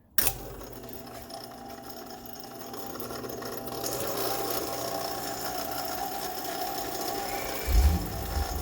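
Repaired power feed on an Atlas milling machine switched on and running steadily, a small motor and gears whirring as they drive the table. It starts suddenly just after the beginning, grows a little louder partway through, and a brief low thump comes near the end.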